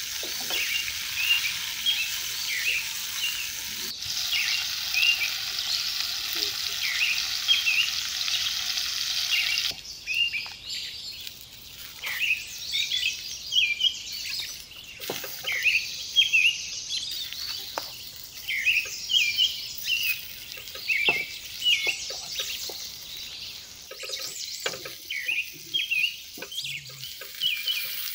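Small birds chirping over and over while food sizzles as it fries. The sizzle drops away about ten seconds in, leaving the chirping and scattered clicks and knocks.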